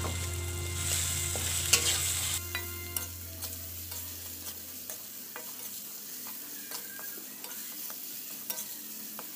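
Metal spoon stirring and scraping through spice paste frying in a wok with lemongrass, galangal and lime leaves, giving a light sizzle and scattered clicks of spoon on pan. The sizzle eases after about two and a half seconds, and a low hum fades away about halfway through.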